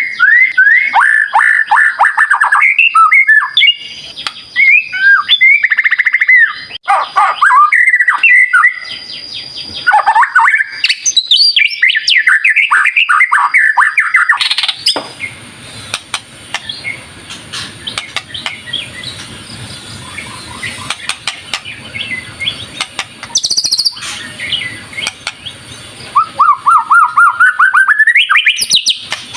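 White-rumped shama (murai batu) singing loud, fast, varied phrases of whistles and trills. About halfway the song gives way to quieter scattered notes over a hissy background, and near the end comes a rapid run of notes climbing in pitch.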